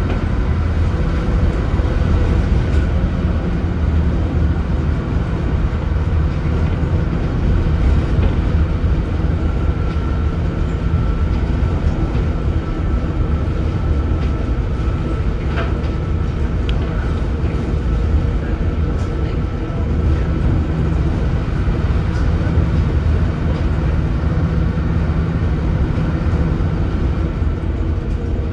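Leyland Atlantean AN68/1R double-decker bus under way, its rear-mounted Leyland O.680 diesel running steadily with road noise.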